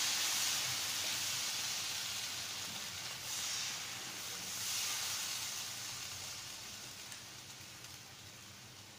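Thin semolina (rava) dosa batter sizzling as it is poured from a ladle onto a hot oiled nonstick tawa, swelling twice with fresh pours about three and five seconds in, then fading steadily.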